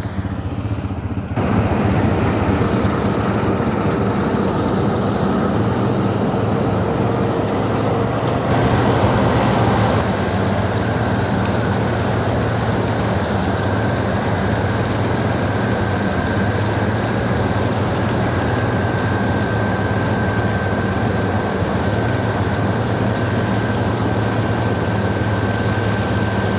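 Harvest machinery engine running steadily, growing louder about a second in. A steady high whine joins it partway through.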